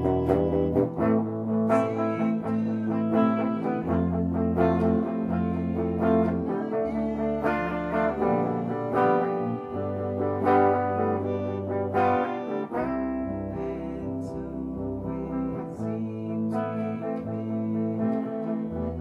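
A band playing an instrumental passage led by guitar, over held bass notes that change every second or two.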